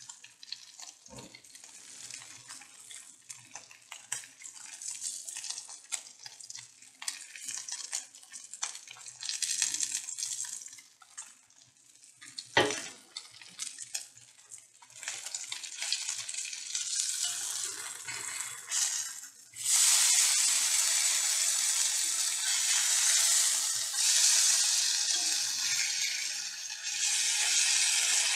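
Marinated fish sizzling in oil on a hot iron tawa, a fine hiss with many small crackles and a sharp knock about halfway through. The sizzle turns much louder about two-thirds of the way in, as the pieces are turned over with a metal spatula onto the hot surface.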